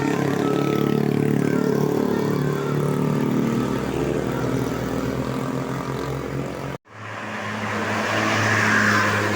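A large bus engine running close by, its pitch shifting as it pulls away. About seven seconds in, the sound cuts off abruptly, then gives way to a steady engine hum and a rush of noise that swells near the end.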